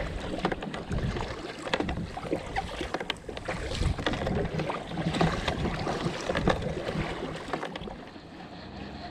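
Kayak paddle strokes splashing in the sea, with wind buffeting the microphone; the sound drops away near the end.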